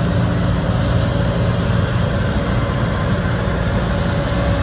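Combine harvester running steadily during wheat harvest: a constant low engine drone with a faint steady whine over it.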